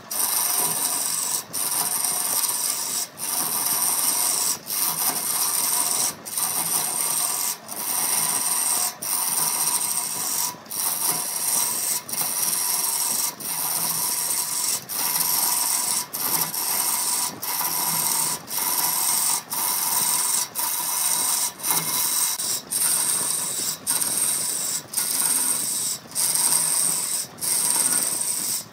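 Turning gouge cutting a large wooden cylinder spinning on a wood lathe, a steady rasping hiss of shavings coming off. It breaks off for a moment every second or so, more often in the second half.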